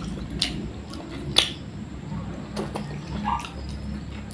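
A person chewing pizza close to the microphone, with irregular wet mouth smacks and clicks, the loudest about a second and a half in.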